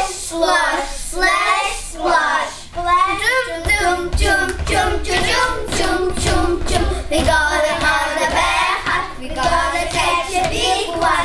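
A group of young children singing and chanting together in unison, with thuds from feet stamping on a wooden stage floor.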